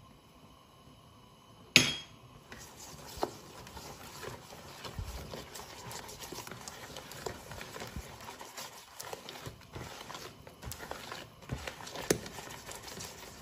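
A sharp knock about two seconds in, then a utensil stirring a thick batter by hand in a bowl: continuous scraping with many small irregular clicks and knocks against the bowl's sides.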